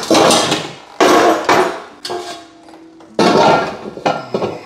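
Hard metal-on-metal strikes, three in all, at the start, about a second in and about three seconds in, each ringing out briefly afterward, like hammer blows on steel.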